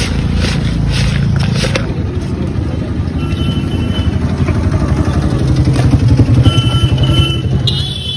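A motor vehicle's engine runs with a steady low rumble that grows louder past the middle, and two short high beeps sound. In the first couple of seconds a steel spoon scrapes and knocks in a plastic bucket.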